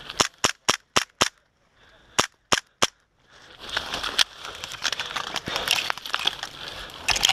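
Airsoft gas pistol firing: five quick shots, a short pause, then three more. After that, branches and leaves scrape and crackle as someone pushes through dense brush.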